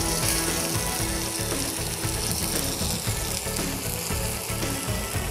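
Spice paste sizzling in a frying pan while it is stirred with a silicone spatula, with a dense crackle of spattering and scraping against the pan. The paste is being fried until browned. Background music plays underneath.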